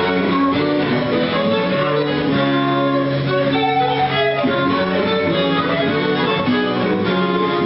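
A Baroque jig played by a small string ensemble, with violins leading over a plucked accompaniment, as music for a dance for three.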